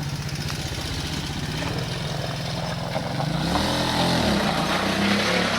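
ATV engine idling steadily, its speed rising about three and a half seconds in and staying higher, as its idle is being adjusted.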